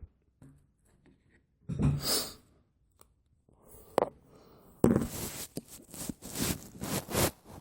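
Handling noises of a phone being closed back up by hand: a short breathy burst about two seconds in, a single click about four seconds in, then from about five seconds a busy run of clicks, scrapes and rustling.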